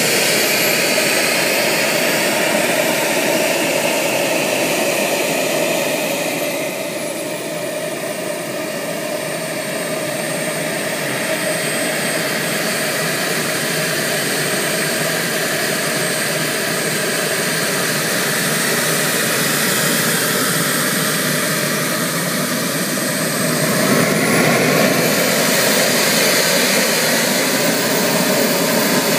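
Twin model jet turbines of an RC F-14 running on the ground: a steady high-pitched whine over jet hiss. The whine falls in pitch about seven seconds in as the turbines spool down toward idle, then rises again near the end as they spool up.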